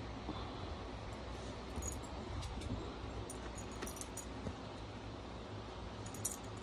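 Faint light jingling clicks and soft rustling as a small dog noses and mouths a plush toy on a blanket, over a low steady rumble. There are a few scattered sharp clicks, one clearer about six seconds in.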